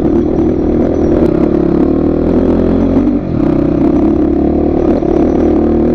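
Motorcycle engine running under way on the ride; the engine note dips briefly about three seconds in, then picks up again.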